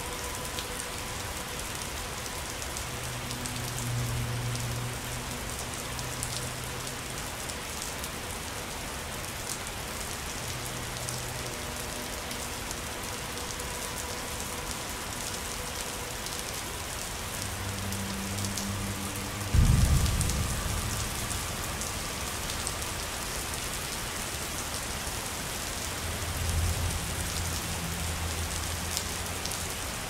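Steady rain falling on a surface, an even hiss of drops. About twenty seconds in, a sudden loud, low boom of thunder breaks and dies away over a couple of seconds, with softer low rumbles before it and near the end.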